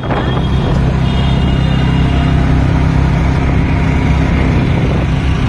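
Steady engine drone and road noise from a moving vehicle in traffic.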